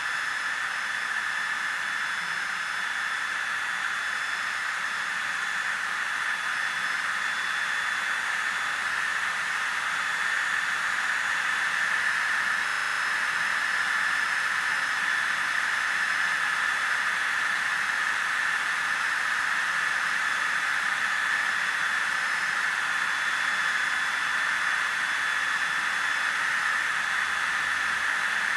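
A steady, loud hiss of rushing noise with faint high whistling tones over it, unchanging for the whole stretch and then cutting off sharply: a sound-design noise effect.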